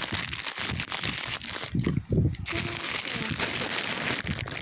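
Plastic packaging crinkling and crackling steadily as it is handled and torn open.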